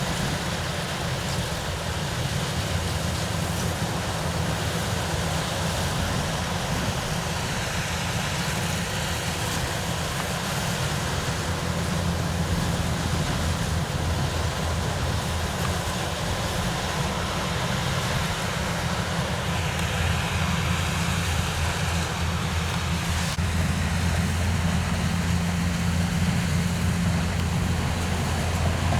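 A heavy engine running steadily with a low drone that gets a little louder about halfway through.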